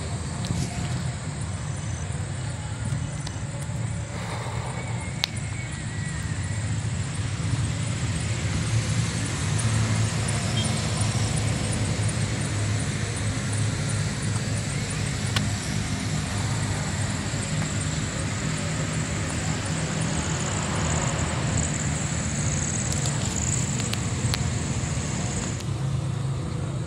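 Steady low rumble and hum of riding along a paved path, with a continuous high-pitched insect trill above it that grows louder for a few seconds near the end.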